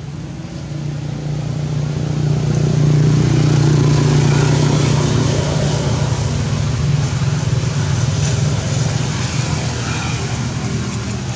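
A motor vehicle's engine hum, steady and low, growing louder to a peak about three to four seconds in and then slowly fading, as a vehicle passing by.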